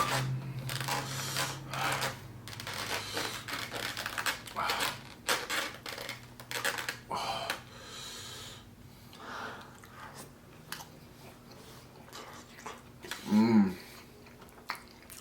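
Close-up eating sounds: a person chewing mouthfuls of food, with wet smacks and small clicks coming irregularly. A short hummed vocal sound comes near the end.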